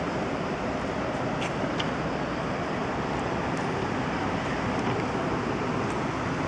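Steady road traffic noise, an even rumble and hiss with no distinct horn tones, with two faint clicks in the first two seconds.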